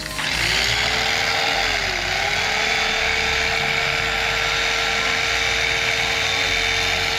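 A small electric power tool with a motor spinning up, dipping in speed briefly about two seconds in, then running steadily.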